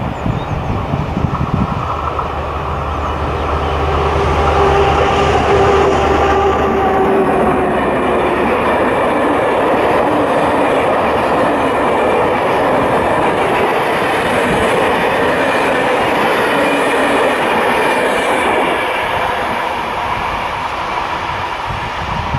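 Diesel locomotive passing close by hauling a train of Corail passenger coaches. First comes the engine's low steady drone, then the loud rolling wheel noise and clickety-clack of the coaches going past, which fades near the end.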